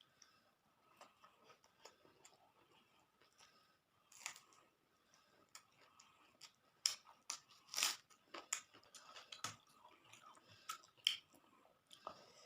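Close-up eating sounds: chewing and crunching on fried pakoras with rice, with scattered sharp mouth clicks and crunches that grow louder and more frequent in the second half.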